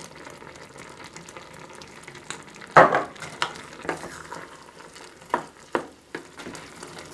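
Apple pieces simmering in a stainless steel saucepan with a faint steady sizzle. From about three seconds in, a wooden spoon stirs them, knocking against the pan several times; the first knock is the loudest.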